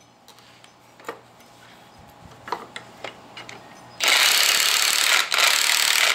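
Cordless impact wrench hammering continuously on a spring compressor's screw, compressing a strut's coil spring; it starts about four seconds in, after a few faint metal clicks as the tool is set on the compressor.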